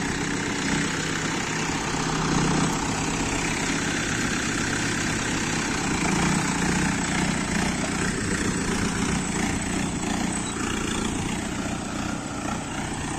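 Mahindra Yuvo 585 tractor's four-cylinder diesel engine running steadily under load in four-wheel drive and a medium gear, pulling a tine cultivator through hard, dry soil.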